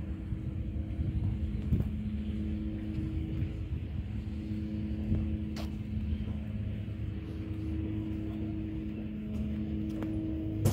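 An engine running steadily: a low, even hum with a few faint clicks.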